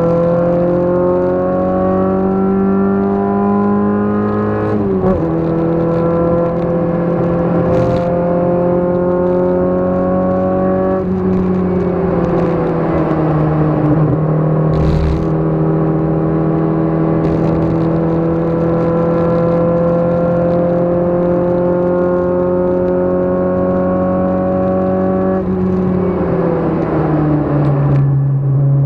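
Race car engine heard from inside the cabin under hard track driving. The engine note climbs steadily and drops sharply about five seconds in, like an upshift, then climbs again. It falls away, lifting off and winding down for a corner, and later climbs slowly before falling again near the end.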